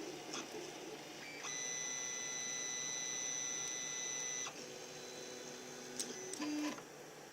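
3D printer's stepper motors whining as the axes move: a steady high-pitched tone for about three seconds from about 1.5 s in, then a lower, quieter tone, a click and a brief low tone near the end.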